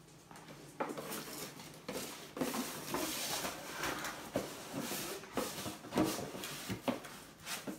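Dog nosing into a small cardboard box and shoving it across a tile floor: cardboard rustling and scraping, with scattered knocks as the box hits the floor.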